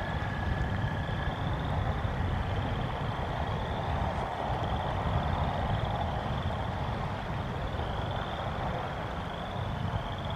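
Thunderstorm ambience: a steady low rumble of wind and rain with a broader swell of noise about halfway through, and a high trilling call repeating roughly once a second.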